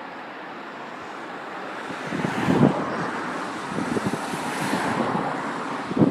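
Wind gusts buffeting the microphone, with a couple of heavy thumps, over the rumble of a diesel freight train heading away down the line.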